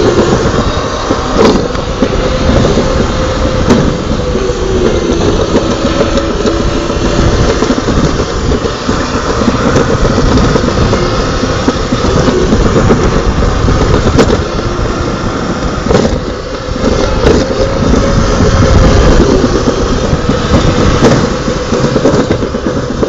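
Sled rolling fast down a toboggan track: a loud, steady rumble with a hum that wavers in pitch, and occasional knocks as it runs through the chute.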